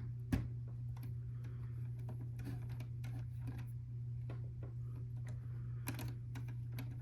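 Small plastic clicks and taps of LEGO pieces being handled and pressed together, sharpest just after the start and again around six seconds in, over a steady low hum.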